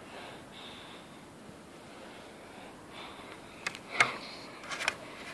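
Quiet handling noise, then a few short sharp clicks and taps between about three and a half and five seconds in as a plastic wheel trim is handled.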